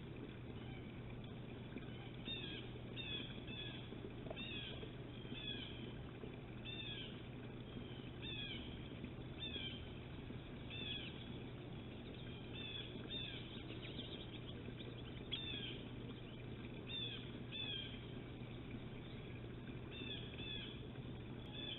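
Small songbirds calling over and over, short down-slurred notes often given in quick pairs about once a second: agitated scolding at a Cooper's hawk perched below them. A steady low hum runs underneath.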